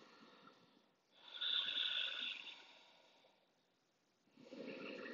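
A woman's slow, deep belly breathing: two long, airy breaths, the stronger one about a second in and another near the end.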